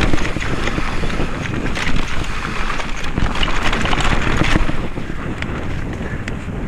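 Wind buffeting an action camera's microphone as a Specialized Kenevo mountain bike descends a dirt forest trail at speed, the tyres rolling over the rough ground with a steady clatter of small knocks and rattles from the bike.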